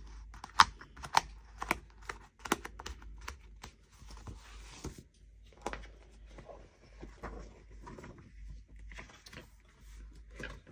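Punched paper pages being pressed onto the discs of a disc-bound planner: a quick run of sharp clicks and snaps in the first few seconds, then softer paper rustling with occasional clicks.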